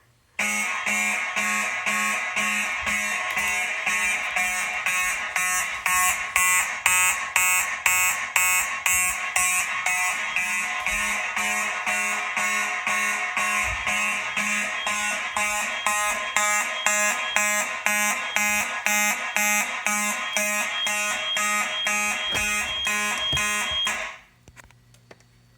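Fire alarm horns sounding in alarm, set off by a heat detector heated with a lighter. They give a buzzy horn tone pulsed evenly at about two beats a second, in march-time coding, and cut off abruptly near the end.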